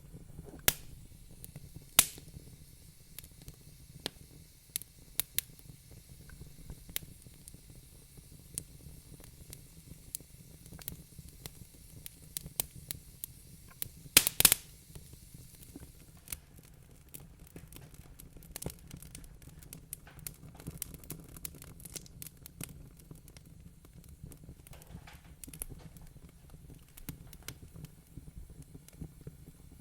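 Wood fire crackling in a fireplace: irregular sharp snaps and pops, with a quick run of the loudest pops about halfway through, over a steady low hum.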